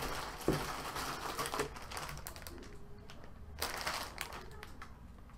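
Clear plastic packaging crinkling and rustling as a plush toy in its bag is handled and pulled from a cardboard box, with a sharp knock about half a second in. The crinkling comes in two spells, a long one at the start and a shorter one around four seconds in.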